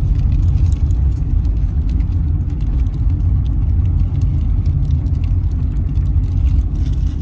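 Car on the move, a steady low road-and-engine rumble with faint scattered ticks.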